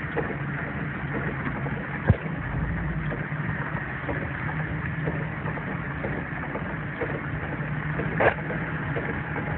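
Vehicle engine running steadily, heard from inside the cab, under a constant hiss of heavy rain and water on the road. A single sharp knock sounds about two seconds in.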